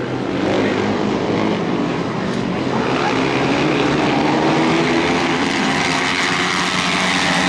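Several flat-track racing motorcycles running hard around a dirt oval. Their engines make a continuous overlapping drone whose pitch wanders up and down as the riders accelerate and back off through the turns.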